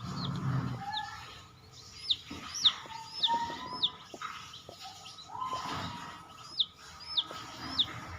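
Chicks peeping: short, sharp, high peeps that slide steeply down in pitch, a quick run of about five around the middle and three more near the end.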